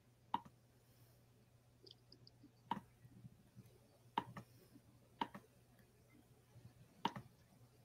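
Five faint, sharp clicks, spaced a second or two apart, over a low steady hum.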